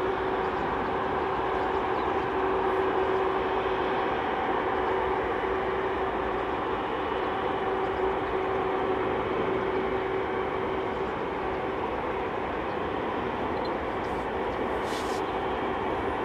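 Twin turbofan engines of an Airbus A330 running at taxi power as the airliner taxis and turns onto the runway: a steady hum with a held mid-pitched tone. A short click about fifteen seconds in.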